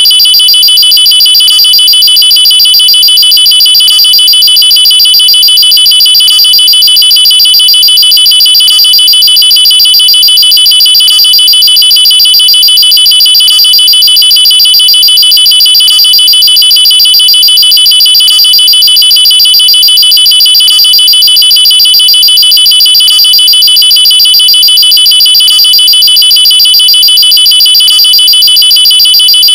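Electronic alarm sound played as a nuclear warning: a loud, high-pitched tone pulsing in a rapid trill, repeating unchanged with no rise or fall in pitch.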